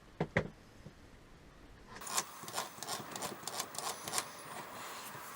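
Two sharp clicks, then from about two seconds in a run of irregular small clicks, rattles and scraping as a small plastic-and-metal RC truck gearbox is handled and its casing taken apart.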